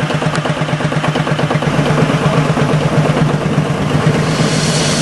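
Two-foot narrow-gauge railway locomotive's engine running steadily with a fast, even beat. A hiss comes in about four seconds in.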